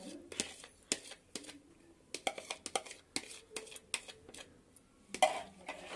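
A metal spoon clicking and scraping against a bowl and the rim of a pressure-cooker pot while yogurt is spooned into the curry: a string of light, irregular clicks.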